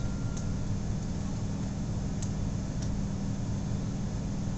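Steady low machine hum of background room noise, with a few faint clicks.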